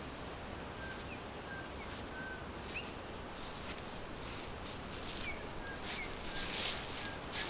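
Forest birds giving short, scattered chirps over a steady background hiss. Brief bursts of rustling grow louder from about five seconds in.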